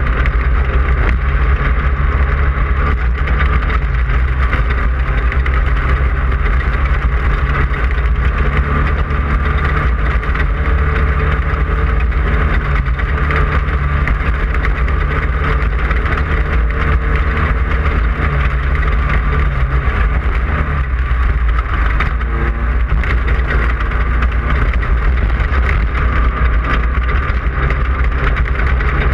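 A Class 5/1600 race car's air-cooled 1600 cc VW engine running hard at a steady speed, with a constant rushing noise over it.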